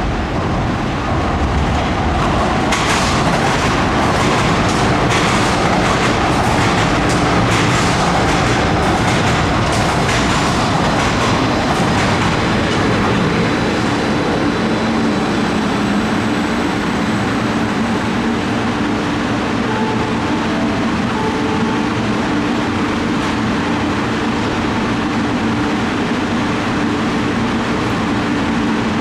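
Light-rail train running into an underground station, its wheels clicking over the rail joints among a loud rumble for the first dozen seconds. After that comes a steadier hum with a few low, level tones as the train moves slowly or stands at the platform.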